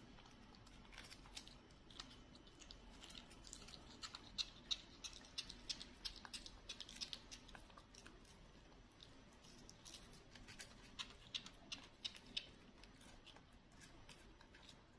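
A small monkey nibbling and chewing a snack: faint, quick, irregular crisp crunches and clicks from its bites.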